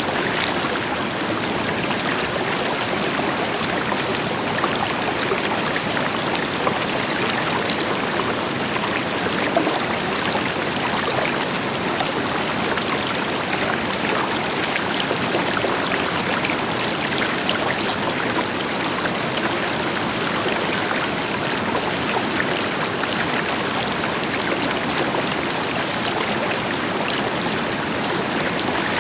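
River water flowing and splashing over rocks, a steady rushing with small bubbling splashes, with a waterfall's deeper rush in the background.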